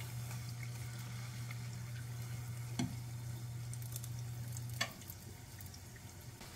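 Biscuit-dough fried pie frying in a small pan of hot oil: a soft, steady bubbling sizzle. Under it a low hum from the glass-top electric stove cuts off with a click about five seconds in, as the radiant burner cycles off.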